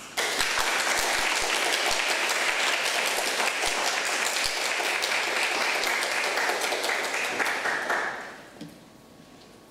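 Audience applauding, starting all at once and dying away about eight seconds in.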